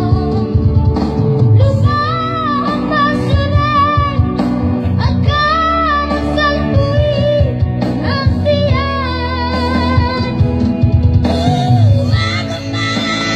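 A child singing a melody with held, wavering notes over instrumental backing music.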